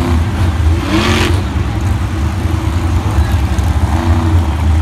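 Monster truck engine running with a deep, steady rumble, blipped in short revs that rise and fall in pitch about a second in and again around four seconds in.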